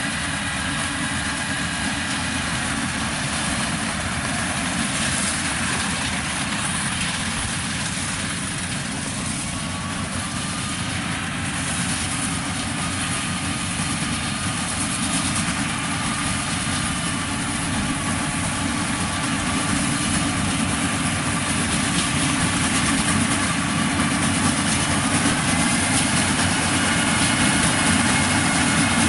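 Combine harvester engine running steadily while it cuts rice, growing gradually louder over the second half as the machine comes close.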